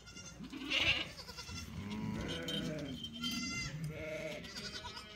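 Goats bleating again and again, the calls overlapping: some high and thin like a young kid's, others lower.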